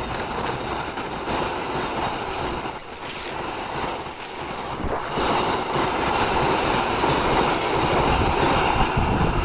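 Passenger train running past, a steady loud din of wheels on the rails that grows louder about halfway through.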